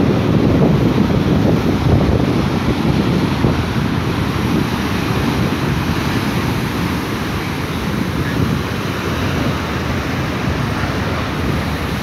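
Heavy ocean surf breaking over a rocky shore: a continuous churning roar of water, a little louder in the first few seconds, with wind rumbling on the microphone.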